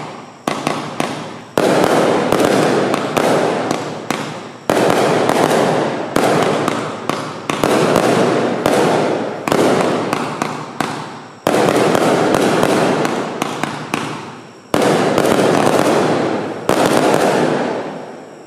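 A 30-shot consumer firework cake firing: a long run of sharp shots, roughly one a second with some brief gaps, each followed by a loud fading crackling hiss as the gold and red aerial bursts open.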